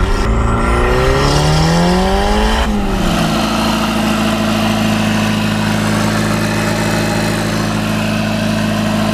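Turbocharged 1.6-litre Mazda Miata four-cylinder engine pulling in gear, its pitch rising steadily for a couple of seconds. It then cuts to the same engine running at a steady raised idle while the idle is being turned down.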